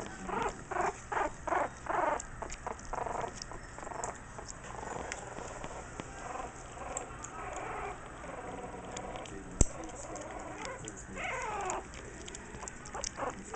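Jack Russell Terrier puppies whimpering and squeaking: a quick run of short squeaks at the start, softer cries through the middle and a wavering whine near the end, over faint little clicks and pattering. One sharp tap a little past the middle.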